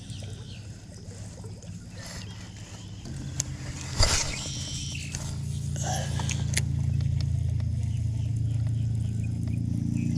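A small fishing boat's motor running with a steady low hum that grows louder about three seconds in, with one sharp knock about a second later.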